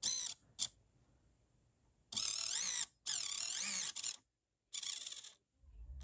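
Tiny DC motor whining through a 3D-printed half spur gear in short stop-start runs as its wires are touched to a battery, tilting the model dump truck's bed. A brief burst and a blip come first, then three runs of about a second or less.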